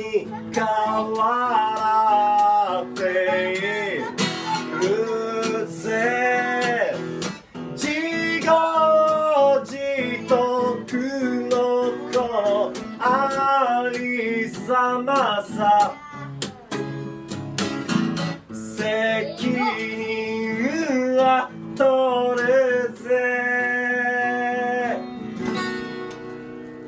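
Harmonica playing a melody over strummed acoustic guitar chords, with bent and held notes, a long held note near the end.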